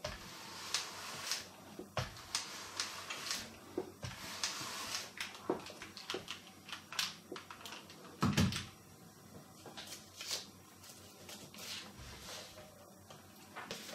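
A small travel iron sliding over a sheet of paper laid on a cardboard carrier card, a run of short papery swishes. About eight seconds in a dull thump, the loudest sound, as the iron is set down on the table, then soft paper rustling as the sheet is lifted.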